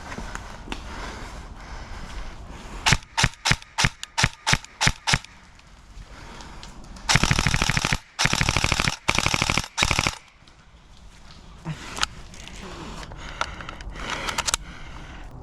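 BOLT MP5K airsoft electric gun with recoil system firing: about ten quick single shots, then three full-auto bursts of about a second each, and a couple of stray shots near the end.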